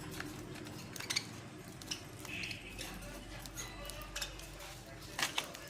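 Pet budgerigars making soft, short chirps and warbles, over scattered sharp clicks and a steady low hum.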